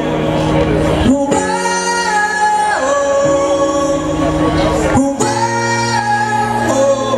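Live rock band playing loud, amplified: electric guitars, bass, drums and keyboards, with held chords that break off briefly twice.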